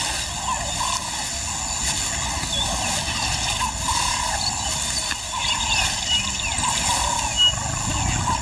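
Lioness scraping and pawing at dry earth and grass with her forepaws as she buries the stomach of a kill, with bird calls repeating in the background.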